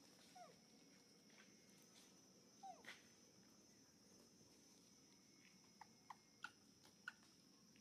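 Faint, short squeaks and whimpers from a nursing infant macaque: a few falling squeaks, the loudest about three seconds in, then a quick run of short squeaks near the end, over a steady high hum.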